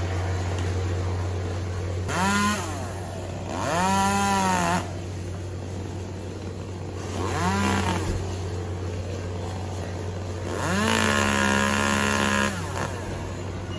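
Chainsaw revved in four short bursts, each climbing then dropping in pitch, the last one held longest. A steady low hum runs underneath.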